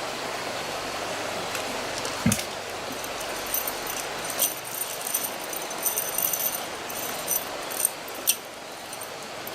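Light metallic clinks and jingles, a dozen or so scattered through the middle, over a steady rushing noise; a dull thump about two seconds in.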